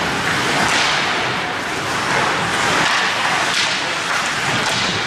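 Ice hockey play: skate blades scraping the ice, with a few louder swishes, over a steady hiss of rink noise.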